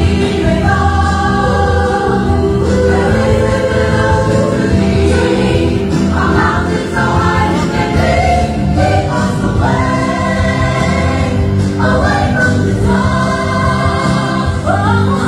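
Loud gospel-style choir song: several voices singing long held notes together over a continuous instrumental backing.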